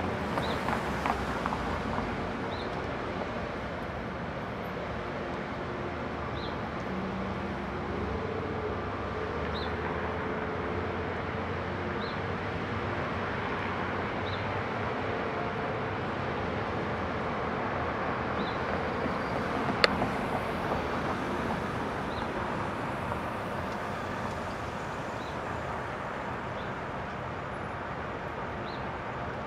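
Steady road traffic at a busy intersection, cars passing and idling, with faint short high chirps every two to three seconds and one sharp click about two-thirds of the way through.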